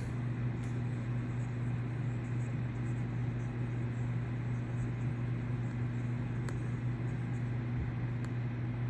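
Steady low mechanical hum over a faint even hiss, unchanging throughout.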